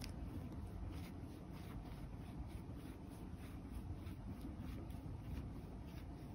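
Faint scratchy rubbing of a facial massage roller being rolled through a cat's fur, with soft irregular ticks.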